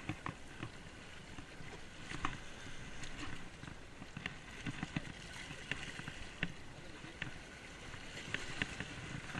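Water washing and sloshing at a rocky shore, a steady rushing noise, with scattered sharp clicks and knocks through it.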